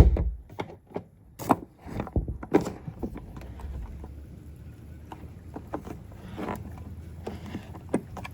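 Low rumble of distant thunder through the middle, after a thump at the start and a few sharp clicks and knocks.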